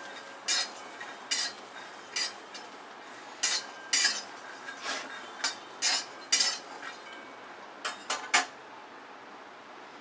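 Metal spatula scraping and clattering against a kadhai as shelled ghevda bean seeds are stirred while dry-roasting: about a dozen irregular strokes, with the beans rattling in the pan. The stirring stops shortly before the end.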